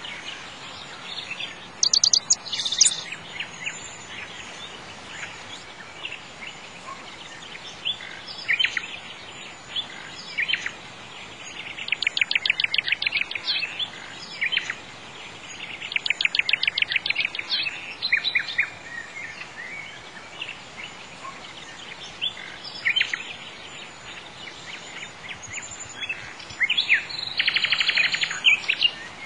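Birds chirping, with scattered single chirps and three longer trills of rapidly repeated notes, over a faint steady background hiss.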